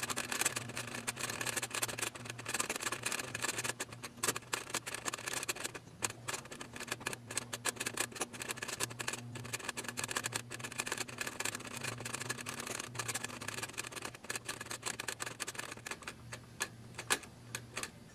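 Flip-number cards of a 1980 GE Model 7-4305C flip clock radio clattering over one after another as the time is set forward, a fast, uneven stream of small plastic clicks. A steady low hum sits underneath.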